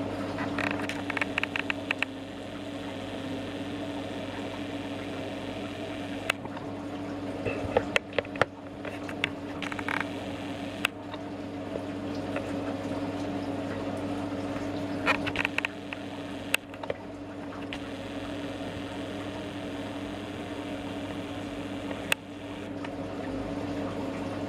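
A home-built pot still running during an apple brandy run: a steady low hum under a constant watery hiss, with a few short bursts of rapid dripping or bubbling ticks and some sharp single clicks.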